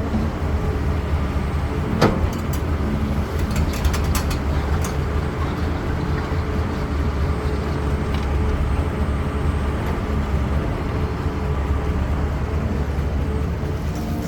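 A CAT 320D excavator's diesel engine (a Cat C6.4) runs with a steady low drone. A sharp knock comes about two seconds in, followed by a few more clicks and knocks shortly after.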